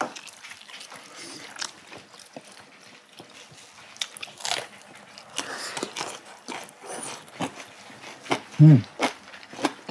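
Two people eating at close range: chewing and crunching, with bites into a raw red chili pepper and light clicks of chopsticks on dishes. A short hummed voice sound comes near the end.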